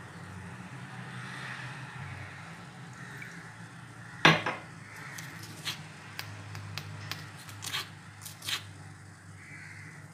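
Soaked chickpeas simmering in water in a stainless steel pot on a gas stove, under a steady low hum. About four seconds in comes one loud knock, followed by a scatter of sharp clicks and taps over the next few seconds.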